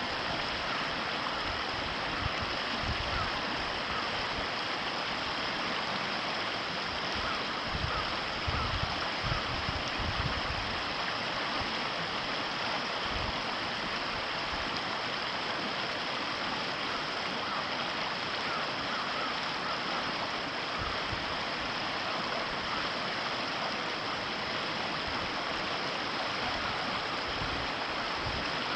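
Ōtakine River water running in a steady, even rush. A few brief low thuds come in the first ten seconds or so.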